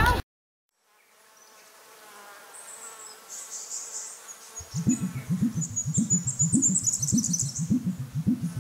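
Opening of a music soundtrack: after about a second of dead silence a faint buzzing sound fades in. About halfway through, a low pulsing drone joins it, beating roughly three times a second, with faint high chirping above.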